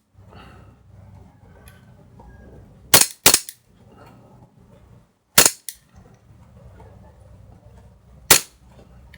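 KSC M9 gas blowback airsoft pistol, fitted with an RA-Tech CNC steel slide and a stiffer recoil spring, firing on WE gas. Sharp cracks of the shots and slide cycling: a close pair about three seconds in, another pair about five and a half seconds in, and a single crack near the end.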